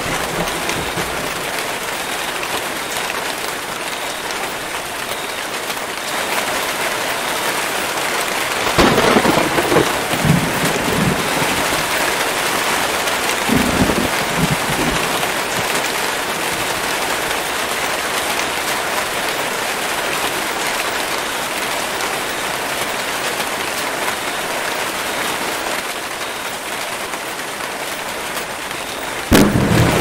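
Steady heavy rain falling on tropical forest foliage, with thunder breaking in suddenly about nine seconds in and rumbling on in a few surges over the next five seconds, then a sharp loud thunderclap just before the end.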